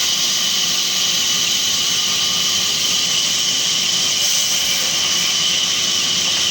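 Band sawmill sawing neem wood, a steady, loud, high-pitched hiss that holds even throughout.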